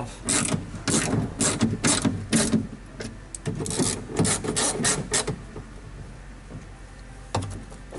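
Hand ratchet wrench clicking in quick back-and-forth strokes as bolts on a car door's lock actuator and latch assembly are tightened. The strokes stop about five seconds in, and one more click follows near the end.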